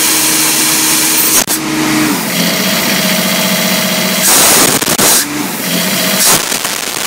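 Kaeser M26 mobile air compressor's three-cylinder Kubota diesel engine running steadily, its tone changing about two seconds in. There are a few sharp knocks, and a brief loud rushing noise about four seconds in.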